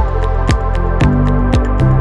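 Electronic background music with a steady kick-drum beat, about two beats a second, with lighter ticks between the beats over held synth notes.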